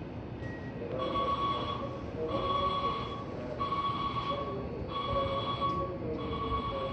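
A railway platform's electronic signal tone rings about five times in a row, each ring about a second long with a short gap between, over platform background noise.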